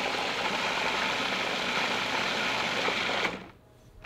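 Food processor motor running steadily, puréeing a thick red pepper and walnut dip, then switched off about three quarters of the way through. A couple of sharp plastic clicks near the end as the machine is handled.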